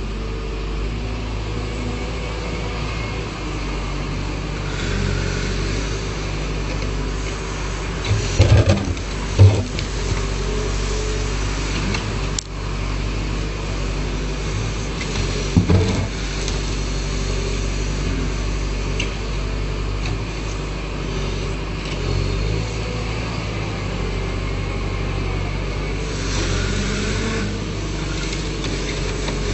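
Backhoe loader's diesel engine running steadily while it works, with a few sharp knocks about a third of the way in and again near the middle, as the machine handles stone.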